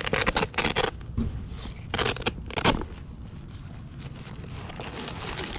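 A few short bursts of scraping, rustling handling noise as the solar panel's carrying case and its accessories are handled, with the strongest bursts in the first second and around two seconds in.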